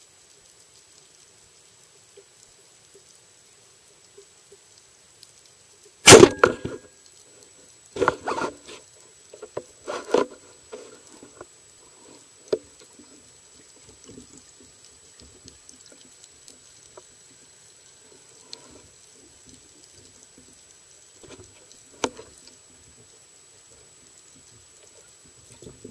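Band-powered speargun fired underwater about six seconds in: a sharp crack with a short rattle after it, followed by several duller knocks over the next few seconds and one more sharp click near the end.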